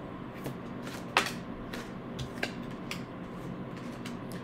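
Tarot deck being shuffled and handled, then a card laid on the table: a string of soft card snaps and taps, the sharpest about a second in, over a faint steady room hum.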